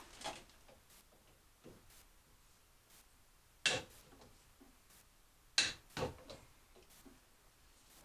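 Two sharp clacks about two seconds apart, the second followed at once by a smaller knock, with a few faint knocks in between: hard objects or tools being handled and set down.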